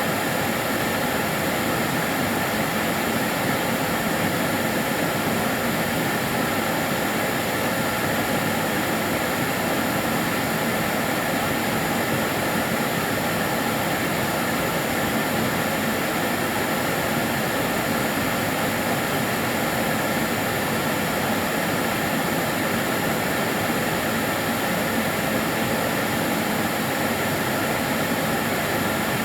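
Karcher DS 6 Premium water-filter vacuum cleaner running steadily: an even, unbroken motor and airflow whoosh with a few faint steady tones in it.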